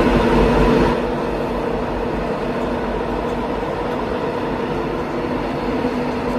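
Train starting up and moving off: a steady mechanical hum with several held tones, a little louder in the first second.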